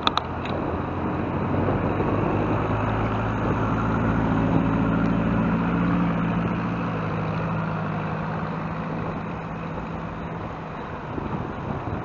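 Motor-vehicle engine hum in passing road traffic, heard from a moving bicycle: a steady engine note over tyre and road noise, strongest in the middle and easing off near the end. A couple of sharp clicks right at the start.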